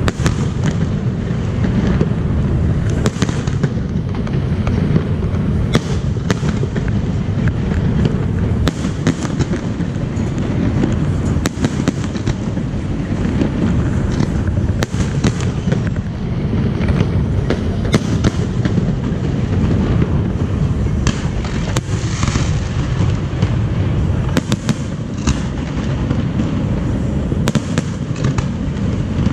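Fireworks display with shells bursting in quick succession: a continuous low rumble of overlapping booms, broken by frequent sharp bangs and crackles.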